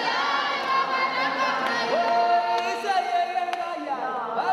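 A group of voices singing together unaccompanied, with long held notes from about two seconds in and pitches that glide between them, and a few sharp ticks.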